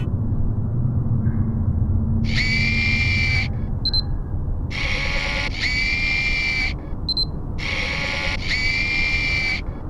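Sound effects for an animated logo: a low rumble over the first few seconds, then five swooshing bursts of about a second each, each carrying a steady high tone, with short high pings in the gaps between them.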